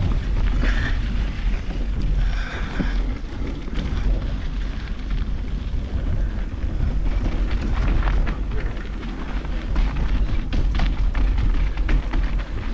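Heavy wind buffeting a handlebar-mounted GoPro's microphone on a mountain bike running downhill, with sharp clicks and rattles of the bike over rough trail that grow busier from about halfway.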